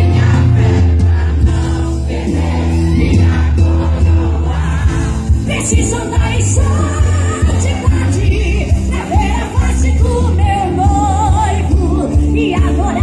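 Live gospel music: voices singing in chorus over an amplified band with a heavy, steady bass.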